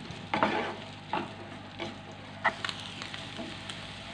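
Chopped onions and green chillies frying in hot oil in a non-stick frying pan with a steady sizzle, stirred with a wooden spatula that scrapes across the pan several times.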